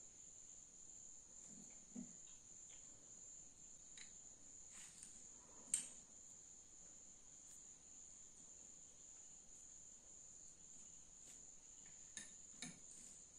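Near-silent room with a steady high-pitched tone throughout. A few faint clicks and taps come from a spoon spreading mayonnaise on bread on a steel plate, the clearest a little before the middle.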